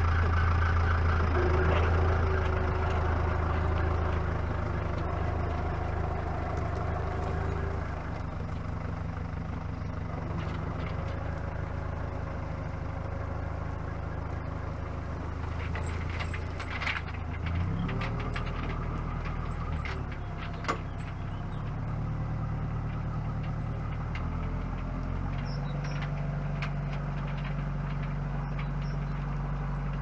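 Diesel engine of an LS compact tractor running in low gear as it pulls slowly away, growing quieter over the first several seconds. Its engine note changes a couple of times past the middle, with a few sharp clicks and snaps around then.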